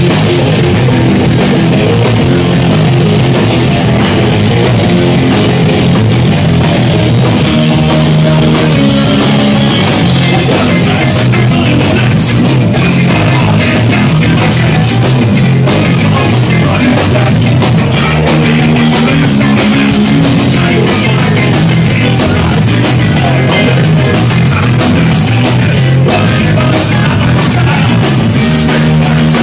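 Live rock band playing loudly, with electric guitar, bass and drum kit.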